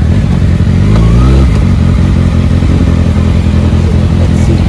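Kawasaki ZX-6R's inline-four engine running at low speed. About a second in it revs briefly with a rising pitch, then settles back to a steady run.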